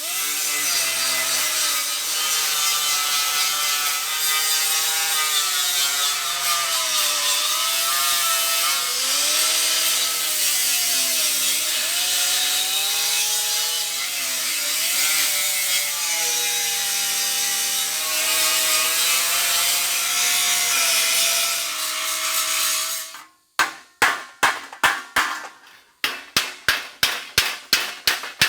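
Power grinder working sheet steel, smoothing down weld seams on a patch panel; its pitch dips and rises as it is pressed on and eased off. About 23 seconds in it stops, and a quick run of sharp taps follows, about two to three a second.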